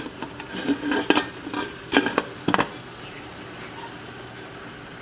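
Metal tiered steamer pot and domed lid clinking and clanking several times over the first two or three seconds as it is set on the stove to steam mung beans, then a steady low hiss.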